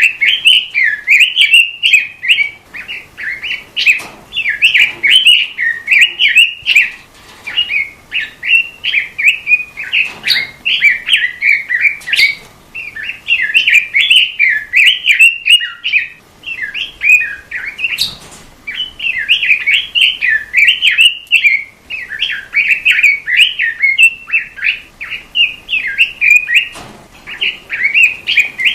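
Red-billed leiothrix (Pekin robin) singing loudly: long runs of fast, chattering warbled notes, broken by brief pauses.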